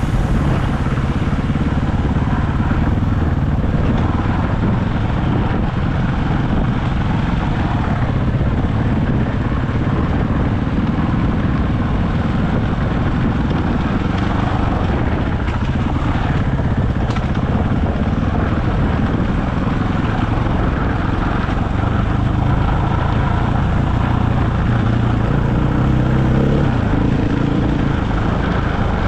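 Dirt bike engine running steadily under way, its pitch holding fairly even with small throttle changes.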